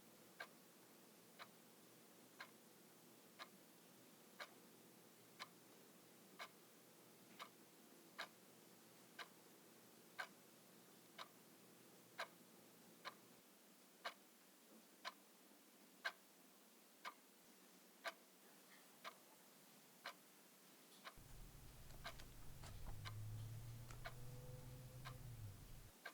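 A clock ticking steadily, about once a second. About five seconds from the end, a low rumbling drone comes in, swells, and then stops.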